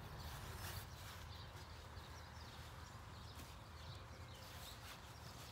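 Faint rustling and soft knocks of hands digging through potting soil in a grow bag to find potatoes, over a low steady hum.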